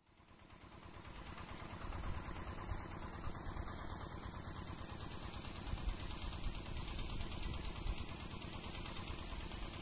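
Outdoor ambience fading in over the first two seconds: a steady low rumble with a constant high hiss above it.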